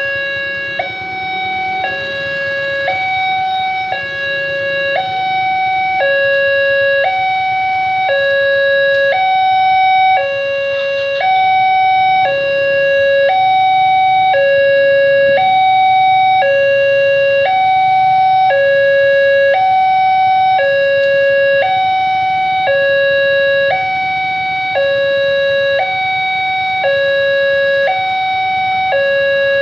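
Railway level-crossing warning alarm sounding, a loud electronic two-tone signal switching evenly between a higher and a lower tone about once a second. It warns that a train is approaching the crossing.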